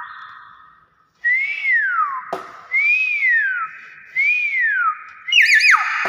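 Common hill myna whistling: three loud whistles about a second and a half apart, each rising and then sliding down, with a sharp click between the first two, then a quick run of three short whistles near the end.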